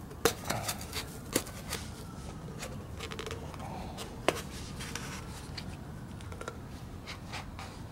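Gloved hands working a rear shock absorber and its new bump stop: scattered light clicks and taps with soft rustling, most of them in the first two seconds and one sharper tap about four seconds in.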